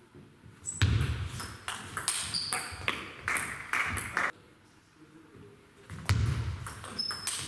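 Celluloid-type table tennis ball clicking sharply off bats and the table in quick exchanges. There are two runs of hits, each opening with a low thud, with a lull of about a second and a half between them.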